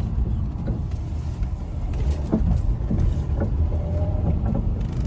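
A car being driven, heard from inside: a steady low rumble from the wheels and road, the noise of a failing wheel hub.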